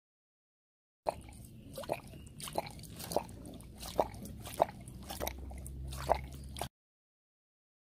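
Tiger lapping water from a metal bowl: a run of wet laps and splashes, roughly one every two-thirds of a second.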